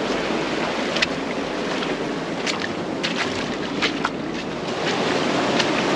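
Steady rush of surf and wash on a rocky shoreline with wind on the microphone, with scattered sharp clicks and knocks throughout.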